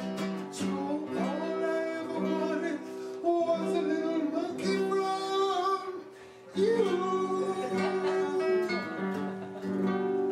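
A song with a voice singing over guitar accompaniment, with a brief pause about six seconds in.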